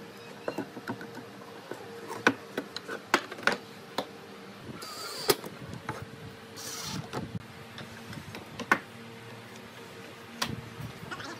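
Wooden chair parts knocking and clicking as they are handled and folded, with two brief bursts from a cordless driver, about five and seven seconds in.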